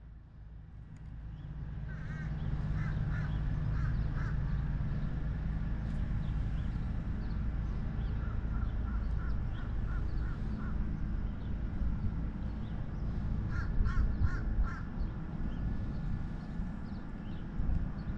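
A crow cawing in three runs of quickly repeated calls: about two seconds in, again around nine to eleven seconds, and again around fourteen seconds. A steady low rumble runs underneath.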